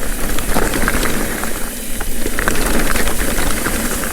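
Mountain bike rolling fast over a rough dirt trail: a steady rush of tyre and wind noise with scattered clicks and knocks from the bike rattling over the bumps.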